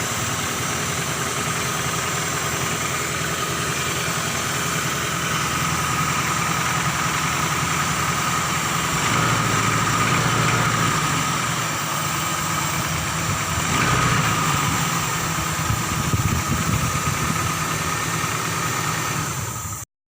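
Honda Cielo car engine idling steadily, swelling slightly twice, then cutting off suddenly near the end.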